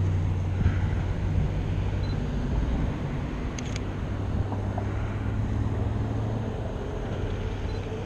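Road traffic at an intersection: a steady low engine drone from a nearby vehicle over the hiss of passing cars.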